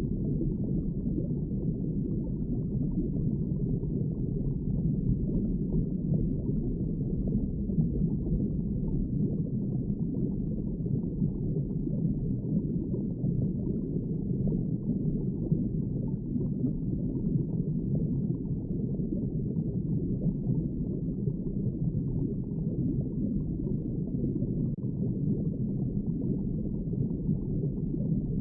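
Underwater ambience: a steady, muffled low rush of water with no distinct events.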